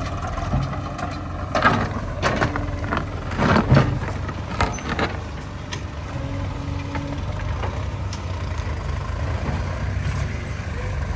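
Heavy diesel engine running steadily, with a run of loud metallic clanks and knocks a couple of seconds in.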